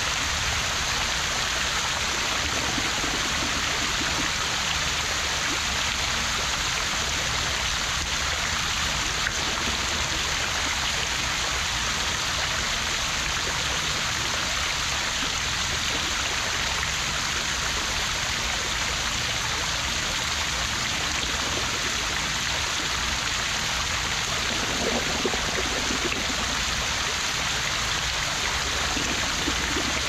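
Tiered fountain's water spilling from its bowl and splashing into the basin below: a steady, even splashing that does not change.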